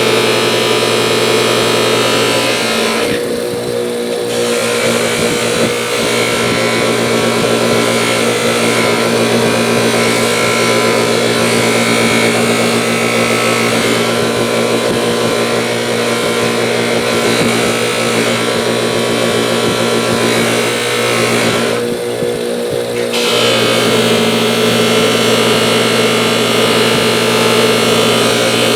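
Electric bench polishing wheel running steadily with a constant motor hum, a pair of pliers pressed against the buffing wheel to polish the metal. The hiss of the work on the wheel lets up briefly twice, about three seconds in and again near twenty-two seconds, as the pliers come off the wheel.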